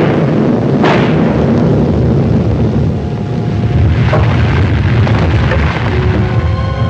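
A loud explosion-like blast with a second burst about a second in, trailing into a long, heavy rumble. Music comes in near the end.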